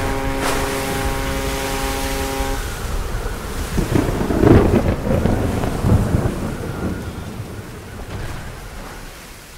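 Storm sound effects of rain and wind, with thunder rumbling about four to six seconds in, fading away toward the end. A steady humming tone sounds for the first two and a half seconds, then stops.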